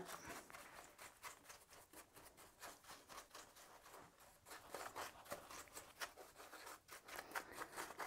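A small hand brush sweeping debris out of the plastic floorhead of a Shark cordless vacuum: faint, quick scratchy strokes of bristles on plastic, coming a little more often in the second half.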